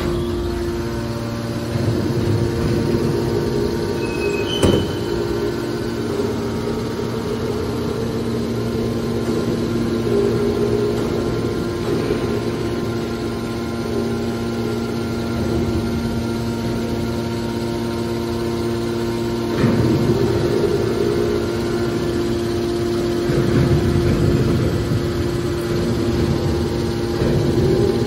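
Electric motor and hydraulic pump of an HC81T-630 horizontal hydraulic scrap-metal baler running with a steady hum. A single sharp knock comes about five seconds in, and the noise swells briefly twice in the second half.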